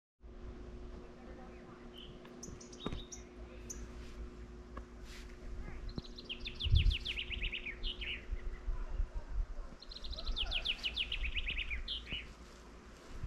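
A songbird singing the same short song twice, each a fast run of notes sliding down in pitch, with a few scattered chirps before it. Under it a low rumble and a faint steady hum, and a single low thump about seven seconds in.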